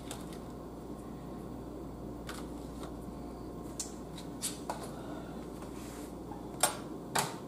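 Light handling clicks and rustles of a clear plastic clamshell herb pack, a handful of scattered clicks over a steady low hum, the loudest near the end.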